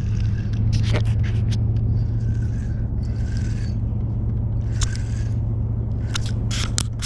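A boat motor runs with a steady low hum, which is the loudest sound. Over it come sharp clicks and short stretches of whirring from a fishing reel as the line is cast and cranked in.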